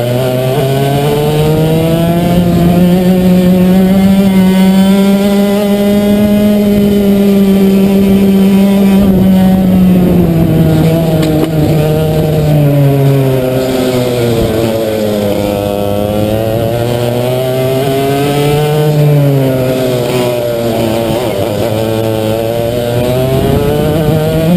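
A racing kart's two-stroke engine at full throttle. It holds a high, steady note down the straight, then drops in pitch as the kart slows for a corner about halfway. Through the corners the pitch rises and falls twice more, and it climbs again near the end as the kart accelerates.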